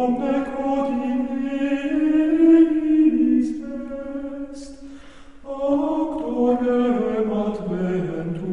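Men's voices singing Latin plainchant in unison, in slow held notes, with a short break for breath about five seconds in.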